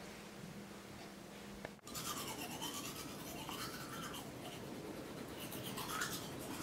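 Manual toothbrush scrubbing teeth in quick back-and-forth strokes, starting about two seconds in after a low steady room hum.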